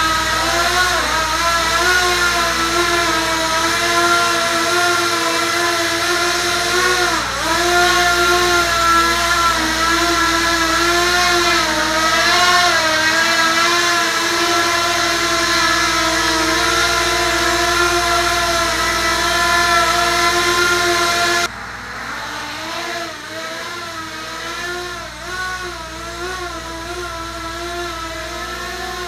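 ROA Parkour 280 racing quadcopter hovering, its motors and propellers whining as a stack of tones that waver up and down with the throttle. About 21 seconds in, the sound abruptly becomes quieter and duller.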